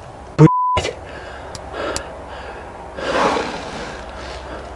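A short censor bleep tone about half a second in, cutting off a word. About three seconds in comes a man's loud, sharp gasping breath over faint handling noise from the handheld camera.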